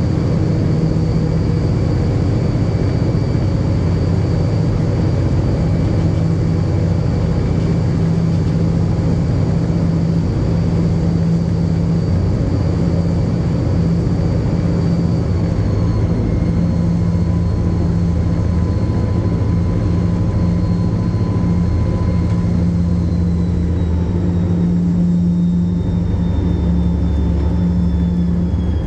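Diesel-electric banking locomotive running steadily, a loud continuous engine drone, with a faint high whine that steps down in pitch in the second half.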